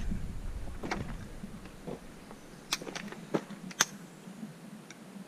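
A few faint sharp clicks and taps over a low wind rumble on the microphone, which dies away about two seconds in.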